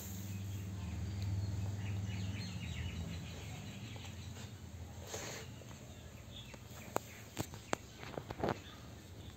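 Background noise with a low steady hum that fades after about three seconds, faint high chirping, and a few sharp light taps near the end.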